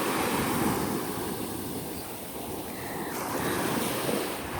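Gulf surf washing onto the beach, with wind buffeting the microphone.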